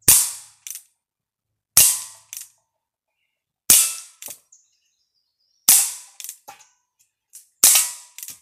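Umarex Colt Peacemaker CO2 BB revolver firing five single shots about two seconds apart, each a sharp pop followed by a fainter click about half a second later. A used CO2 cartridge, left in the gun for over a month, still fires it, though the shooter thinks it is starting to get a little weak.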